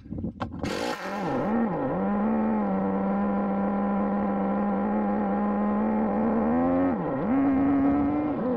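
Traxxas Jato 3.3's two-stroke nitro engine. A short loud rush comes about a second in, then the engine idles steadily. It gives a few quick throttle blips about two seconds in, and again near the end, where the revs briefly rise.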